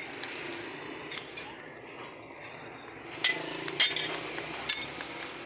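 Loose metal pattern pieces clinking and knocking against a metal casting pattern as they are set in place by hand, with three sharp clinks in the second half, over a steady background hum.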